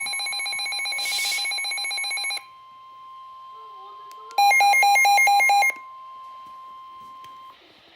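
Emergency Alert System alert tones on a NOAA weather radio. A loud, harsh pulsing electronic tone lasts about two and a half seconds, with a burst of static in it. Then a quieter steady tone of about 1 kHz begins, and a second loud pulsing burst cuts in around four and a half seconds in.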